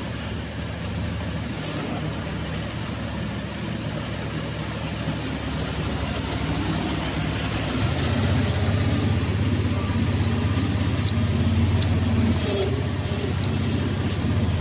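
Mini loader's engine running steadily, growing louder about eight seconds in and holding there. Brief high squeaks come once near the start and once near the end.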